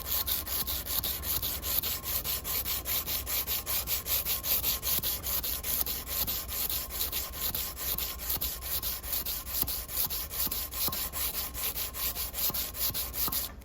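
Abrasive paper rubbed by hand along an unhardened steel knife blade before heat treatment, in quick, even back-and-forth strokes.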